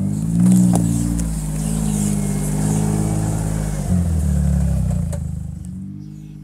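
John Deere Gator petrol utility vehicle's engine running and revving as it drives over rough grass, changing pitch as the throttle varies. It grows fainter near the end as the vehicle moves away.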